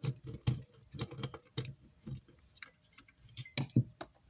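Irregular small clicks and knocks of tools and parts being handled while an amplifier is opened up, roughly a dozen taps spread unevenly.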